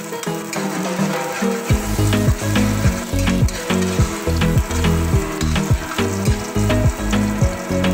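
Sliced onion and garlic sizzling in oil in a steel wok, stirred with a metal spatula that scrapes across the pan again and again.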